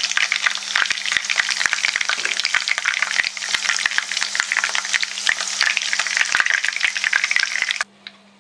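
Marinated chicken pieces deep-frying in hot oil in a kadai: a dense sizzle full of rapid crackling pops, cutting off suddenly near the end.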